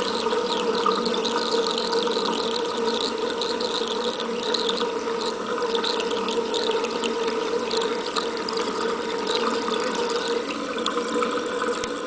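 Thin stream of tap water running steadily into a basin drain, splashing on the metal drain and the water pooled around it.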